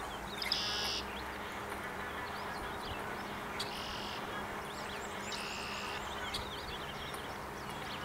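Red-winged blackbird singing: three buzzy, trilled song endings of about half a second each, the first about half a second in and the other two a little under two seconds apart later on. Faint chirps of other birds come between them over a steady outdoor hiss.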